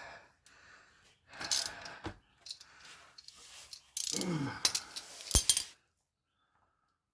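Metal tools and parts clinking and rattling as they are handled, in three short spells with a sharp click near the end, then stillness.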